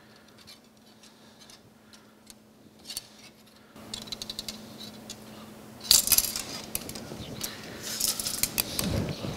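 Small tubing cutter being turned around thin 5/32-inch metal tubing to cut it. Faint for the first few seconds, then a run of light metallic clicks and clinks, loudest about six seconds in.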